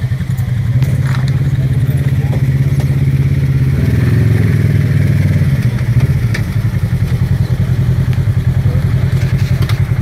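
Side-by-side UTV engine idling close by, a steady low rumble, with a brief rise in revs about four seconds in before settling back to idle.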